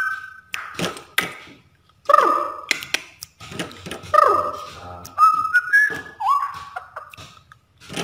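Straw-headed bulbul (cucak rowo) singing: about five loud, rich whistled phrases, many sliding down in pitch, with short pauses between them and a few sharp clicks near the start.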